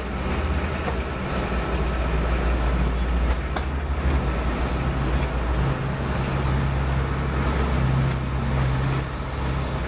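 Low, steady rumble of a motor vehicle engine in street traffic, its note shifting partway through.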